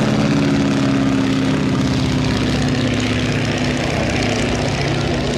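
Boeing Stearman biplane's radial engine and propeller droning as it flies past, the engine note drifting slowly lower in pitch as the aircraft passes and draws away.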